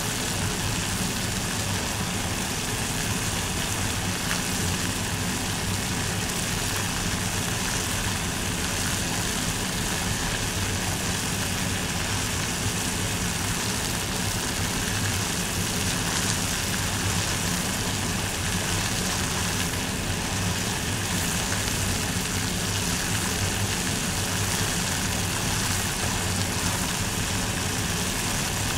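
Water boiling in a pot, bubbling steadily and evenly with a low rumble underneath.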